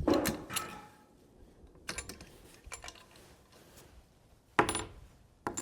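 Scattered small clicks and taps of handling gear, with a short louder rustle about four and a half seconds in.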